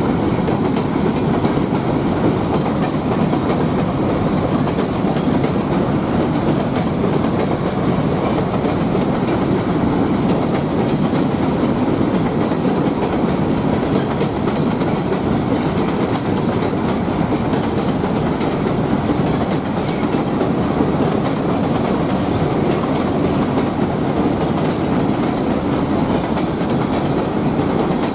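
Covered hopper cars of a freight train rolling across a steel plate-girder railway bridge: a steady rumble of steel wheels on rail with continuous clatter, unbroken and even in level.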